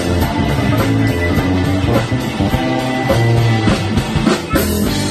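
Electric bass guitar playing a solo through an amplifier, with a drum kit keeping time behind it.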